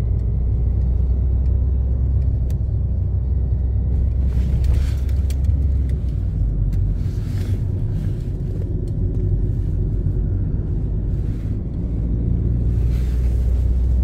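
Road noise inside a moving car's cabin: a steady low rumble from the engine and tyres, with a rushing hiss that swells briefly three times.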